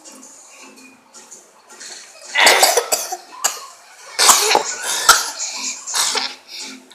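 A person coughing hard in rough bursts, starting about two and a half seconds in and again from about four seconds in, brought on by the burn of hot jalapeño chiles.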